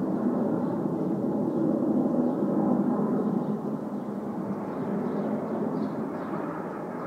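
Aermacchi MB-339 single-turbojet aerobatic jets passing overhead, a steady jet roar that slowly fades over the second half.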